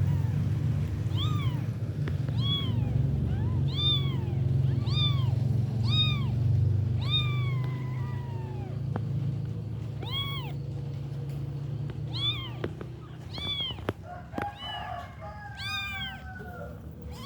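A one-week-old kitten mewing repeatedly: short high calls that rise and fall in pitch, about one a second at first, then more spaced out with a couple of longer, drawn-out cries. A low steady rumble runs under the first half.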